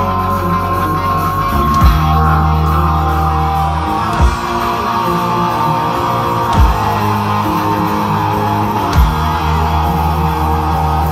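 Loud rock music with heavy electric guitar and bass, with four sharp thumps evenly spaced about every two and a half seconds.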